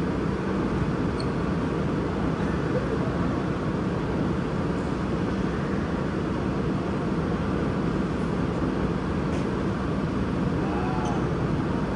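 Steady background din of a busy shopping mall: an even low rumble, with faint, indistinct voices here and there.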